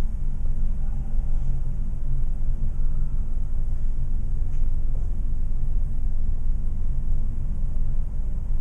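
Steady low rumble and hum of room background noise, picked up by the Kodak Zi8 pocket camcorder's built-in microphone as it pans around the room.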